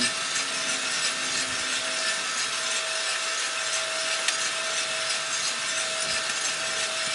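Cormorant CR600 gas coffee roaster running, its drum, fan and burner giving a steady noise with a steady whine. The beans are in first crack, with a sharp crack standing out about four seconds in.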